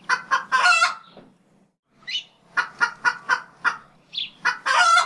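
Rooster crowing and clucking: a crow near the start, a run of short clucks in the middle, and a second crow near the end.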